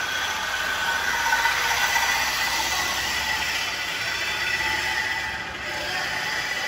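Steady background noise of a car workshop: an even hiss with a faint steady hum, without clear impacts or changes.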